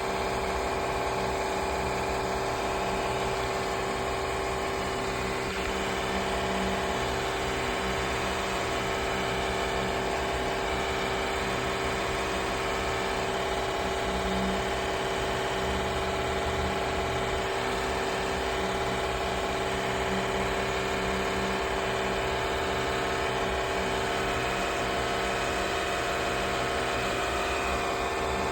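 Noisy electric fan running steadily, a constant whirring hum with a steady pitch.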